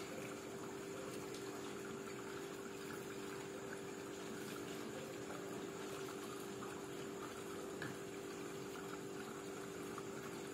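Steady low hum with a few held tones over an even hiss, unchanging throughout.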